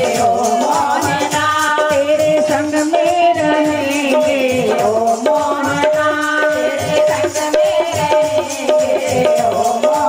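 Women singing a Hindi devotional bhajan into microphones, with a fast, steady percussion beat and handclaps keeping time.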